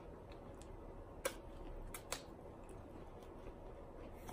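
Faint crinkling of a laminated MRE food pouch being handled and pulled open, with a few sharp crackles about a second in and twice near the two-second mark.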